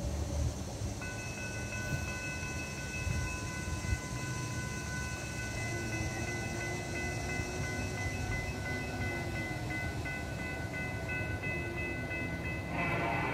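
Railroad grade-crossing warning bell starts ringing about a second in and keeps ringing steadily as the crossing activates. Near the end an approaching freight locomotive's horn sounds over it, louder. Low wind rumble underneath.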